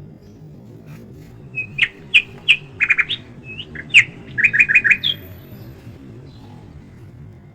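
A songbird singing one phrase of sharp chirps and quick repeated notes, lasting about three and a half seconds, over a low steady background.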